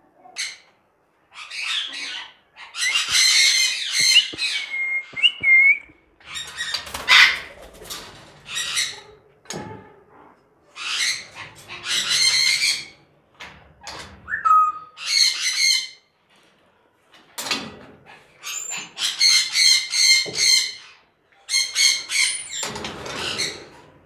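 Caged parrots squawking over and over in harsh calls, with a couple of short whistles among them.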